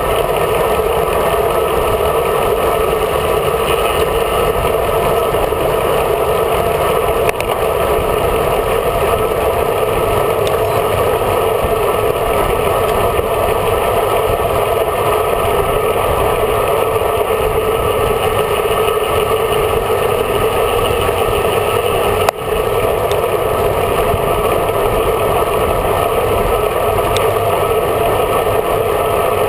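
Steady rush of wind and road noise on a bike-mounted camera riding at speed behind a group of road cyclists, with a single sharp knock about 22 seconds in.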